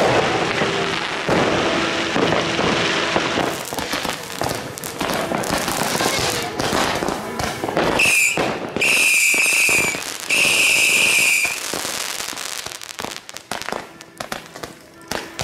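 Fireworks going off: a rapid run of crackling bangs and pops throughout, with three whistling fireworks about halfway through, each holding a steady high whistle for a second or so.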